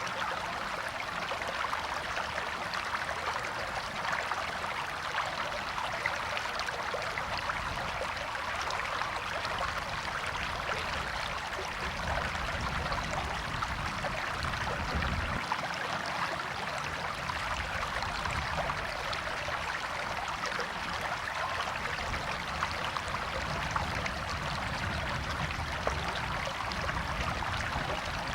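A stream running over rocks, with steady splashing and burbling and a low rumble that comes and goes.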